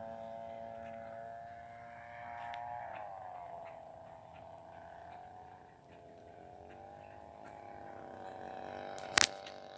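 A model airplane's 35cc DLE two-stroke petrol engine droning in flight, its pitch dropping a little about three seconds in and wavering after that. A single sharp knock near the end is the loudest sound.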